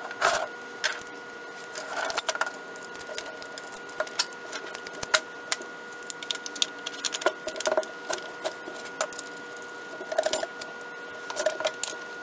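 Steel saw chain links clinking and rattling in irregular light clicks as the loose chain is fitted around a chainsaw's bar and clutch sprocket, with the odd knock of metal and plastic parts being handled.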